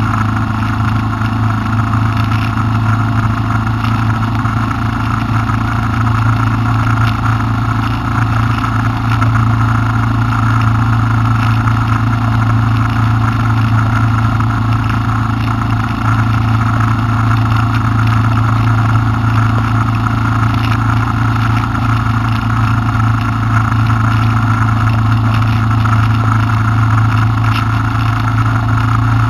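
Honda Transalp V-twin motorcycle engine droning steadily at a constant cruising speed, with wind noise rushing over the microphone.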